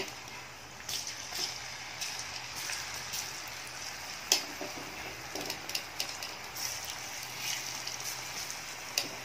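Battered cauliflower florets deep-frying in hot oil: a steady sizzle with scattered crackles and pops, one sharp pop about four seconds in.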